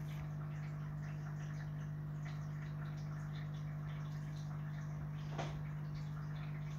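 A steady low electrical hum, with faint scattered ticks and one small click about five seconds in.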